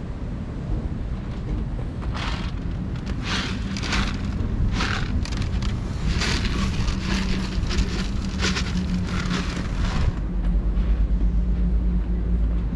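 Dry cat kibble poured and shaken out of a plastic tub onto a wooden cat-house floor, a series of rattling bursts lasting about eight seconds. Under it there is a steady low rumble of wind on the microphone, which grows stronger near the end.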